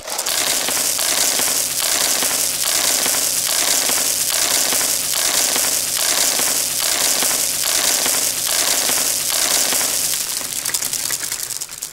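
Dense, loud crackling sound effect, like burning embers, with a faint pulse a little faster than once a second. It stops suddenly near the end.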